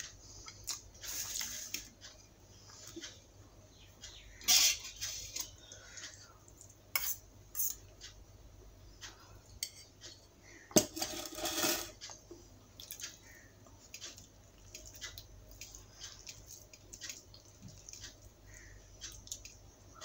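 Stainless-steel dishes and a spoon clinking and clattering as dal is spooned from a steel bowl onto rice on a steel plate, with scattered small clicks between louder clatters; the loudest clink, with a brief ring, comes about halfway through.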